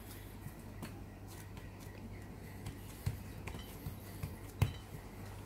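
Hands kneading and pressing a stiff ball of noodle dough on a silicone baking mat: faint soft taps and rubbing, with two duller thumps about three and four and a half seconds in. A low steady hum runs underneath.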